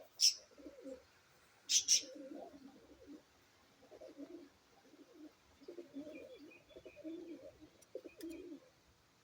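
Pigeons cooing in low, repeated warbling phrases. One short, sharp, high-pitched sound comes just after the start and two more come close together about two seconds in; these are the loudest sounds.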